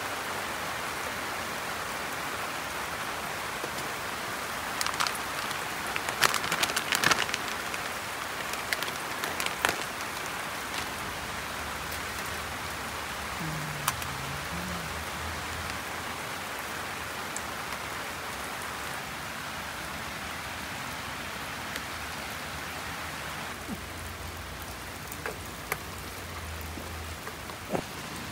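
Heavy rain falling steadily on a tarp and gravel, an even hiss. About 5 to 10 seconds in come a cluster of sharp clinks, and a few more later, from metal tongs against a steel lunchbox tray.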